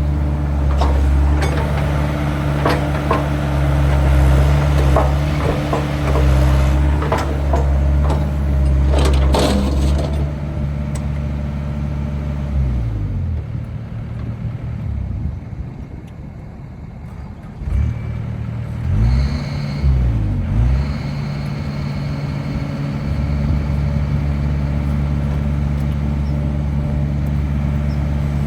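2011 Bobcat E80 excavator's diesel engine running steadily under work, with sharp metallic clanks during the first ten seconds. About twelve seconds in the engine speed drops and it runs quieter. Then it rises and falls several times before settling back into a steady run.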